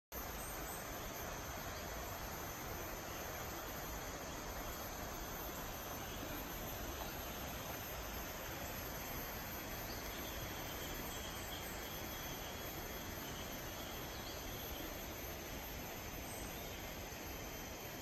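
Steady high-pitched drone of insects in tropical rainforest over an even background hiss, with a fainter second tone joining about halfway through and a few small chirps.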